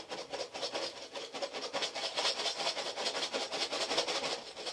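A lidded box packed with bottle caps and a little water being shaken hard, the caps rattling inside in a fast, even rhythm that grows louder about two seconds in.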